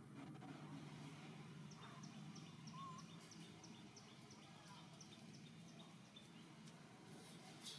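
Near silence: faint outdoor ambience with a low hum and a quick, even series of short, high chirps, about three to four a second, from about two seconds in until near the end; a single click near the end.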